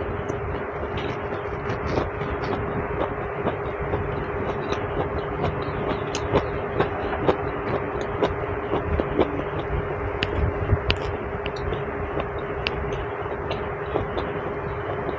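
Eating sounds: chewing and irregular sharp clicks of a fork against a china plate, the clicks loudest and most frequent in the middle stretch. Under them runs a steady noisy hum with a constant low tone.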